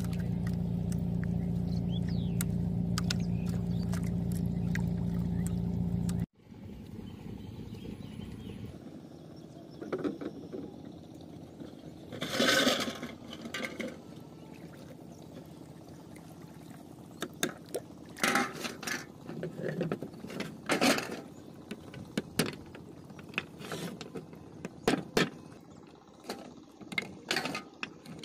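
A steady low hum that cuts off suddenly about six seconds in, followed by water sloshing with one louder splash, then a run of sharp knocks and taps on a wooden boat deck as snail shells are crushed for bait.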